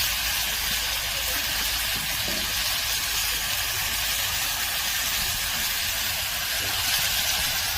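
Meat sizzling on a grill over a wood fire: a steady hiss that runs evenly throughout.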